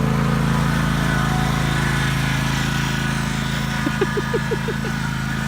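Riding lawn mower engine running steadily. About four seconds in there is a short run of quick high-pitched vocal sounds.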